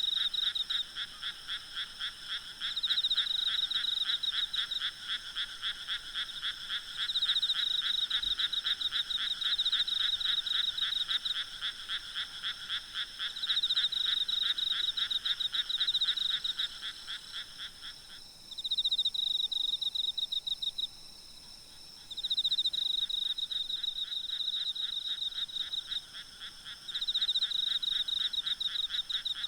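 Night chorus of frogs and insects: fast pulsing calls in two pitch bands. The lower band runs steadily and stops about two-thirds of the way through, while the higher band comes and goes in repeated phrases of a few seconds.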